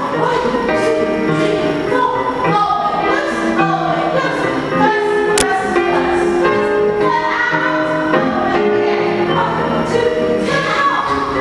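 Music with singing voices over an accompaniment, playing steadily, with a single sharp click about five seconds in.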